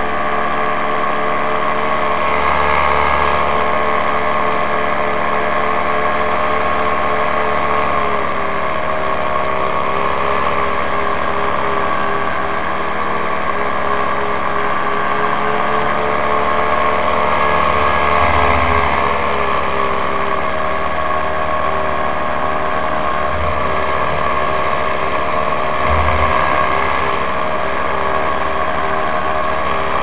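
Paramotor engine and propeller running steadily in flight, loud and even, with the pitch dipping slightly about eight seconds in.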